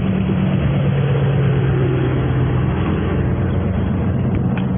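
Vehicle engine running steadily, a low hum whose pitch drops a little about half a second in, with a couple of faint clicks near the end.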